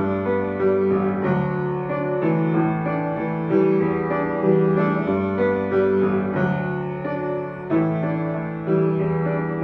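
Upright piano playing a slow instrumental passage: held chords over a low bass line, a new chord struck roughly once a second.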